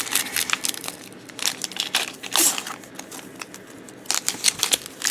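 Plastic foil wrapper of a 2016 Topps Series 2 baseball card pack being torn open and crinkled: an irregular run of crackling rustles, heaviest near the start, in the middle and near the end.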